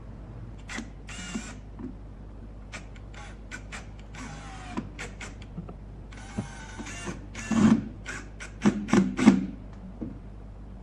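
Screws being driven through a metal strap and wooden block into plastic drywall anchors, in several short runs, among clicks and knocks of the parts being handled. The loudest knocks and grinding come near the end.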